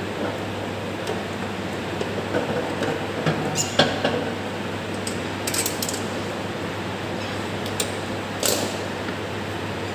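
Scattered short metallic clicks and clinks of pliers and small parts being handled on a vacuum circuit breaker's operating mechanism, loudest about four seconds in, over a steady low hum.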